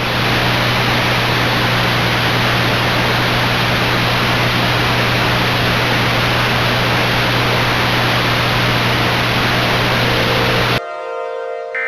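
Loud, steady static hiss with a low electrical hum beneath it. It fades in at the start and cuts off suddenly near the end.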